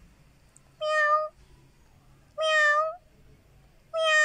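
A kitten meowing three times: short, high-pitched calls about a second and a half apart.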